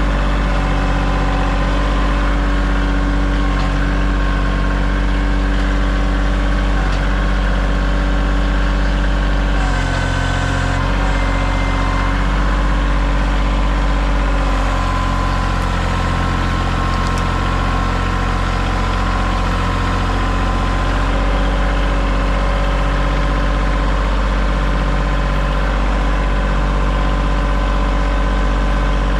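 Kioti tractor's diesel engine running steadily near idle. Its note shifts briefly about ten seconds in and again from about fifteen to twenty-one seconds in.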